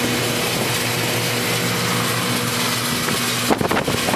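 Steady engine noise heard inside the cabin of an Ilyushin Il-76, from its four turbofan engines: an even roar with a steady low hum. Uneven, irregular sounds join near the end.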